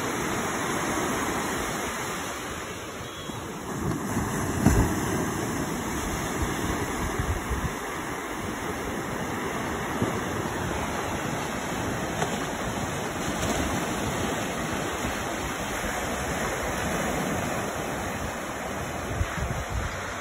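Ocean surf breaking and washing up the sand in a steady rush, with wind bumping the microphone a few times.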